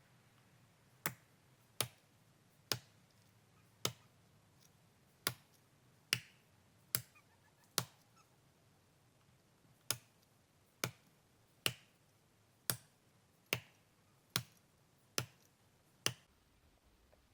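Axe chopping into spruce wood: sixteen sharp strikes at about one a second, with a short pause after the eighth.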